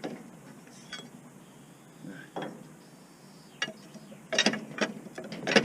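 Hand tools clicking and clinking against metal parts while diesel fuel injectors are being fitted on a T-150 tractor engine: a few separate clicks, then a quick run of sharp clicks near the end.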